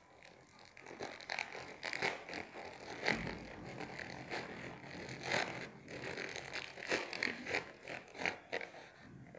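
Plastic courier mailer being torn open by hand: irregular crinkling and ripping of the plastic, with many short sharp crackles.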